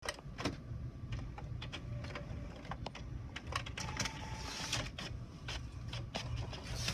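Inkjet printer mechanism working: a string of irregular clicks and ticks, with a brief faint whine about four seconds in.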